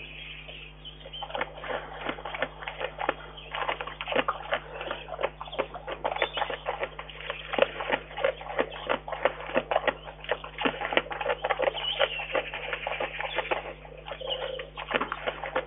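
Brown bear feeding at a log, licking and chewing: a rapid, irregular run of clicks and smacks, with a brief pause near the end.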